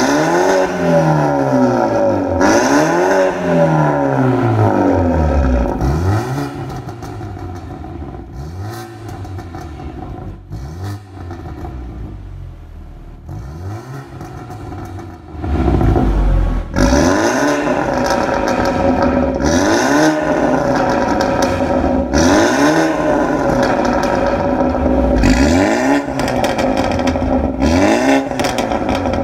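BMW 428i coupe's turbocharged four-cylinder engine revved again and again through an Armytrix valved exhaust, each blip rising and falling in pitch. About six seconds in, the exhaust valves are shut and the revs turn clearly quieter. A little past halfway the valves open again and the revs are loud once more.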